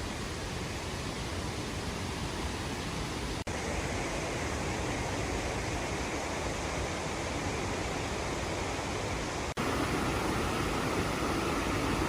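Waterfall rushing in a steady roar of falling water. It drops out for an instant twice and comes back a little louder each time.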